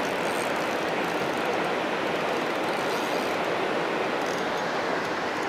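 Steady rushing of river water pouring over a spillway and running through rocks, an even noise that does not change.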